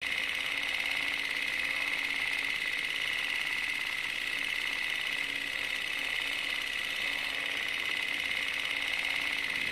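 Movie film projector running: a steady mechanical whirr and fast clatter that starts suddenly out of silence.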